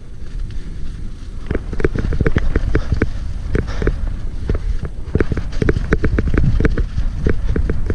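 Hardtail mountain bike descending a muddy dirt trail at speed: a steady low rumble of tyres and wind with an irregular clatter of the bike rattling over bumps.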